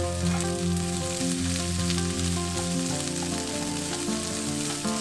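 Cooking oil sizzling steadily as garlic scapes and sliced garlic are stir-fried in a frying pan and stirred with a wooden spoon. Soft background music with held notes plays underneath.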